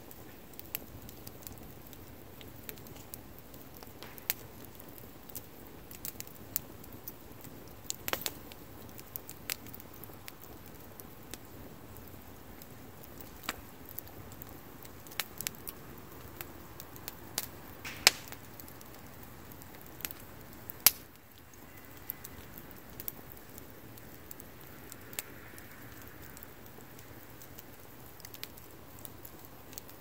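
Wood campfire crackling and popping, with irregular sharp snaps over a steady low hiss; two much louder pops come a few seconds apart about two-thirds of the way through.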